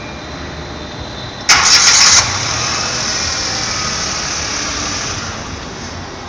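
A new Mitsubishi Mirage's engine being started for the first time. A loud burst of starting lasts under a second, then the engine catches and settles into a steady idle that eases down over the next few seconds.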